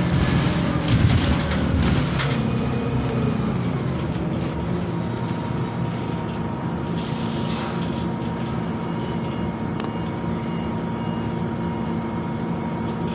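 Cabin sound of a Scania CityWide LF 18 articulated bus running on compressed natural gas: a steady engine and drivetrain hum with a thin whine. Interior rattles and knocks are heavier in the first two seconds, and a single sharp click comes near the end.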